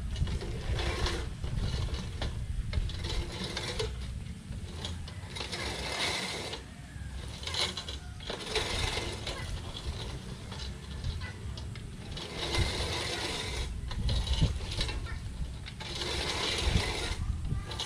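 Manual reel push mower cutting grass: its spinning cylinder blades and ratchet clicking and whirring in pushes of a few seconds, with short quieter breaks as it is pulled back between strokes.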